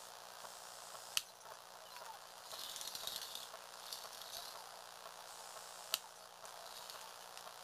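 Small electric motor driving a motorized Lego Technic motorbike's plastic gears and transmission, whirring steadily with a hiss that swells for a moment, and two sharp clicks about a second in and near six seconds.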